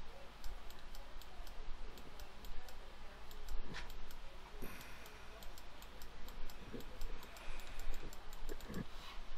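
A computer mouse clicking a few scattered times over a steady low hum and room noise.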